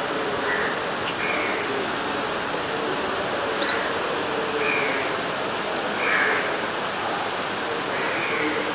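Heavy rain and flowing floodwater making a steady hiss, with a bird giving several short calls over it, one every second or two.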